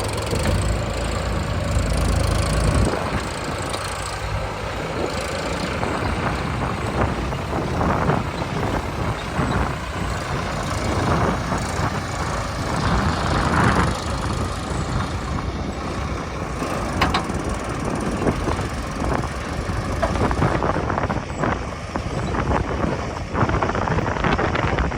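Heavy diesel machinery running, with many irregular knocks and rattles. A strong low engine hum stands out for the first three seconds, then eases into the general clatter.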